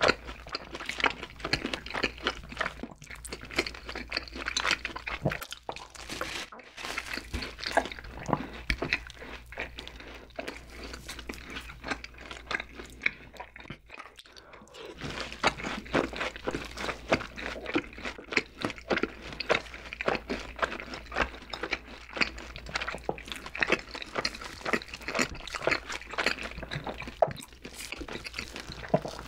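Close-miked crunching and chewing of fried chicken and cheese balls: dense, irregular crackling bites mixed with wet chewing. The crunching eases briefly about halfway through.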